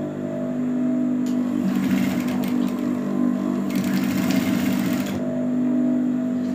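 JUKI industrial sewing machine stitching fabric flowers onto a garment, running from about two seconds in to about five seconds in over a steady low hum.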